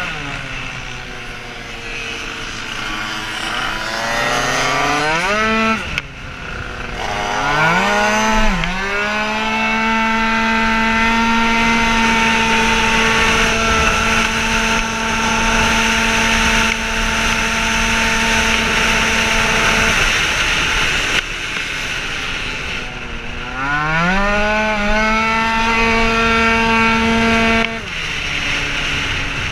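Tuned 50cc two-stroke race scooter engine at full throttle: the note climbs steeply out of the corners, then holds one steady high pitch for long stretches as the automatic variator shifts up. It drops off briefly when the throttle is closed, about six seconds in, around twenty seconds in and again near the end.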